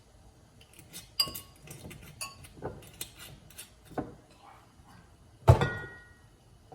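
Kitchen dishes and utensils clinking and tapping as sauce ingredients go into a bowl. A scatter of light clinks is followed, about five and a half seconds in, by a louder knock that rings briefly.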